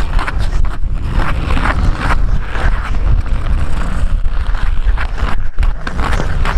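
Hockey skate blades scraping the ice in a steady rhythm of strides during a fast skating lap, over a heavy low rumble of air across the moving microphone.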